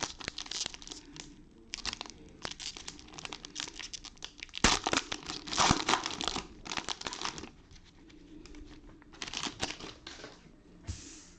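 Plastic wrapping of trading-card packs crinkling and tearing as it is ripped open by hand, in irregular rustling bursts that are loudest about halfway through.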